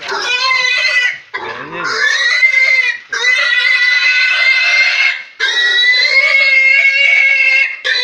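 Pig squealing loudly as it is caught and held: four long, high-pitched squeals, each a second or two long, with short breaks between them.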